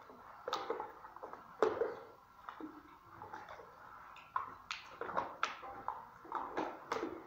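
A bare hand stirring milky white liquid in a plastic bucket: irregular wet slaps and splashes as the liquid sloshes, the loudest about a second and a half in and several more in the second half. This is the hand-mixing of the liquid base for acrylic screeding putty.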